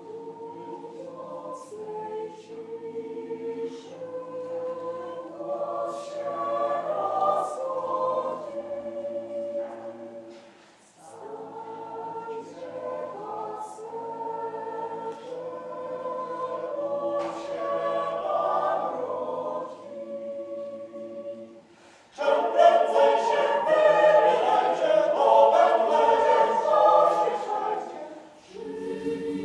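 Mixed choir of women's and men's voices singing a Christmas carol a cappella, in long phrases with brief pauses between them. About two-thirds of the way through the singing becomes clearly louder.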